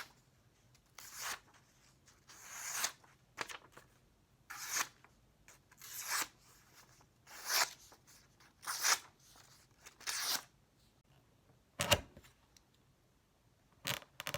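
Repeated hand-drawn scraping strokes, about one every second and a half, each swelling and then cutting off. Two sharper knocks come near the end.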